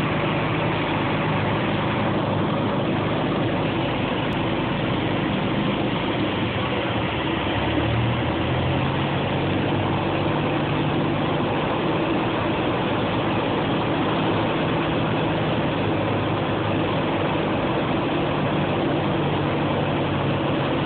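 Light aircraft's piston engine and propeller droning steadily, heard from inside the cockpit on approach, with the engine note shifting slightly about eight seconds in.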